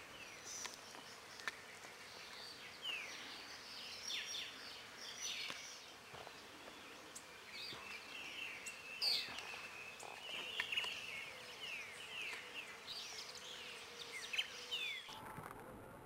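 Several wild birds calling in woodland: many short, falling chirps and whistles, with a longer held note near the middle. The background changes abruptly about fifteen seconds in.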